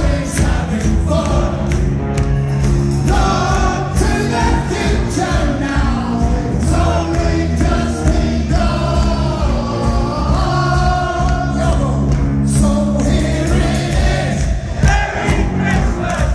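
Live rock band playing loudly through a hall PA, with a sung melody carried by many voices as the crowd sings along.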